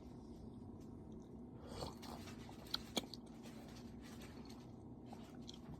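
Quiet mouth sounds of a person sipping and swallowing water, with a soft swell about two seconds in and two small clicks a moment later.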